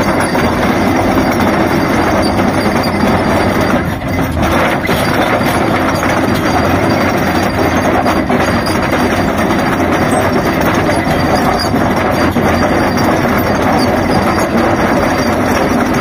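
Excavator-mounted trencher attachment on a Hyundai 480 cutting through rocky ground: a loud, steady grinding noise of the cutter drum and the machine working under load, dipping briefly about four seconds in.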